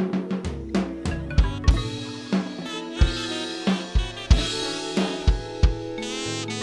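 Background music: a song with a steady drum-kit beat of kick and snare under sustained instrumental notes.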